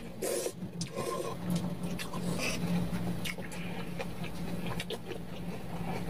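Close-up slurping of cold soybean-milk noodles, followed by chewing with wet, clicking mouth sounds. A steady low hum runs underneath.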